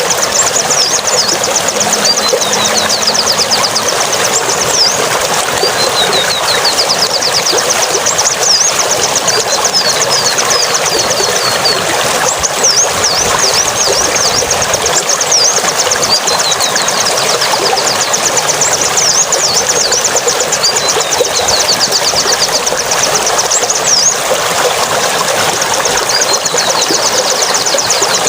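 A small songbird singing long runs of rapid, high, sweeping chirps in phrases a few seconds long, over a steady rushing noise like running water.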